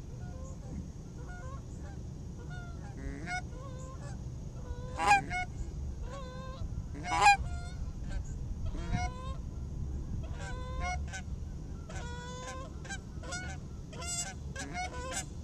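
Canada geese honking over and over, many short calls, with a few much louder single honks about five and seven seconds in, and the calls coming thicker in the last few seconds.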